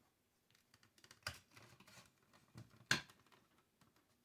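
Small clicks and knocks from handling the plastic housing of a boiler controller module as it is being taken apart, with a sharper click about a second in and the loudest one about three seconds in.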